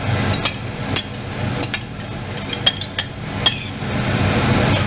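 Sharp, irregular clinks of a metal utensil and the ceramic bowl as beaten egg-and-cheese carbonara sauce is scraped out over spaghetti in a frying pan, about eight in the first three and a half seconds.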